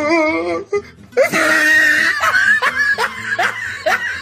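A person laughing hard, breaking into a run of short rising laughs about three a second in the second half.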